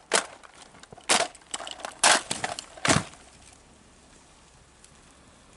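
Soldiers' rifle drill: four sharp slaps and thumps about a second apart as rifles are brought up in unison, the last one the deepest.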